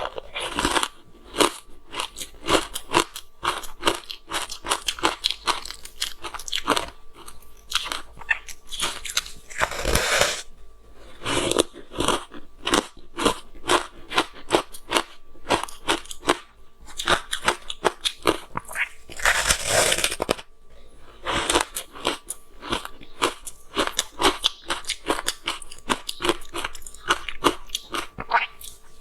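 Close-miked chewing of frozen matcha green tea ice: runs of rapid, crisp crunches broken by short pauses, with a few longer, louder bouts of crunching.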